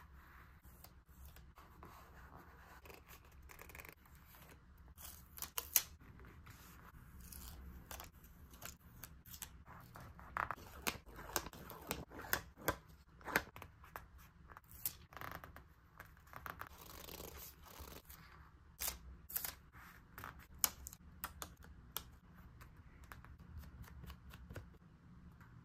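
Scissors cutting paper: a long run of sharp, crisp snips with quieter paper rustling between them.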